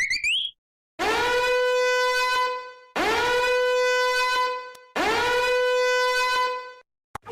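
Horn sound effect: three identical long blasts about two seconds apart, each scooping up into one held, buzzy note. The first is preceded by the tail of a wobbly rising glide.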